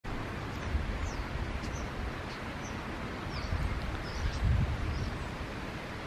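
Flock of thousands of common starlings passing overhead: scattered short high calls over a steady rushing noise. Wind buffets the microphone, most strongly about four and a half seconds in.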